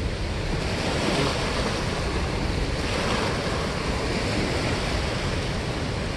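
Steady rushing of water churning below a dam spillway.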